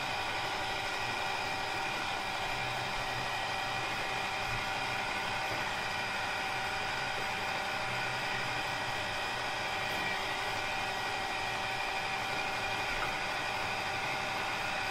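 Small electric motor in the base of a water tornado-maker toy running steadily, spinning the water, an even whir with a constant whine.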